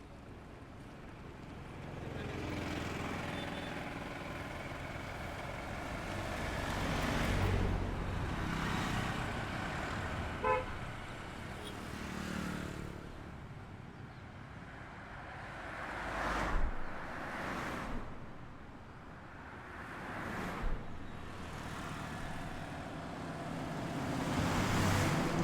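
Road traffic on a highway: vehicles passing one after another, each swelling and fading away, with a short horn toot about ten seconds in.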